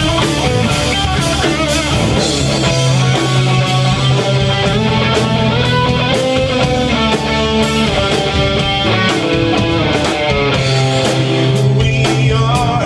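Live rock band playing: an electric guitar over bass guitar and a drum kit keeping a steady beat.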